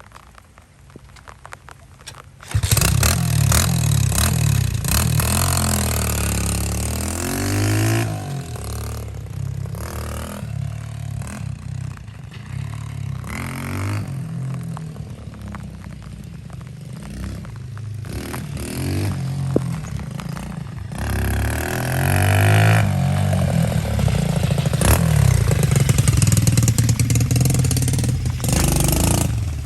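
Minibike's Lifan 125 single-cylinder four-stroke engine being ridden and revved, its pitch rising and falling again and again. It comes in suddenly about two and a half seconds in.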